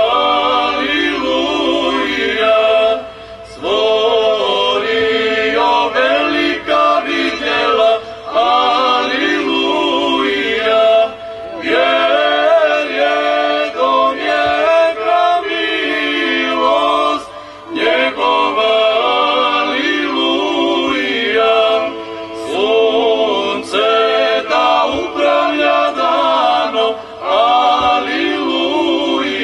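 Small mixed choir of women and men singing Serbian Orthodox church chant a cappella, in long phrases with brief pauses between them.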